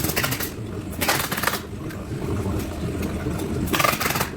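Two short bursts of rapid clicking rattle, about a second in and near the end, over a steady low background noise.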